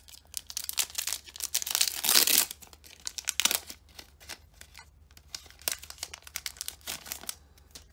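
Foil wrapper of a Pokémon card booster pack being torn open and crinkled, the loudest tearing about two seconds in, then lighter crinkles as the cards are slid out of the wrapper.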